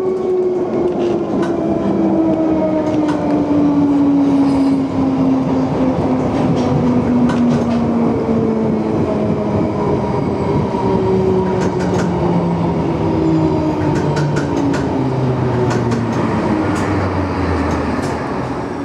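Inside an electric passenger train as it slows: the traction motors whine, with the whine falling steadily in pitch, over running rumble and wheels clicking over rail joints.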